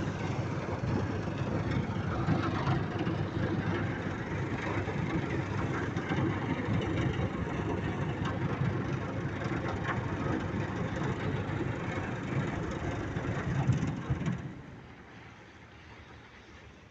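A river cruise ship's diesel engines running with a steady low rumble as it pulls away from the quay, water churning at its stern. The noise drops away sharply about fourteen seconds in.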